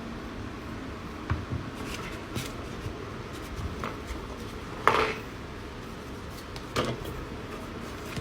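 Cardboard box and packaging of a vinyl figure being handled and opened: a handful of short knocks and clicks, the loudest about five seconds in, over a steady background hum.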